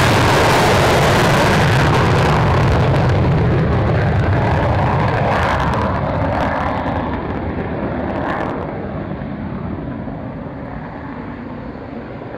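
Military aircraft's engines running at high power on takeoff, a loud, steady noise that fades gradually as the aircraft climbs away.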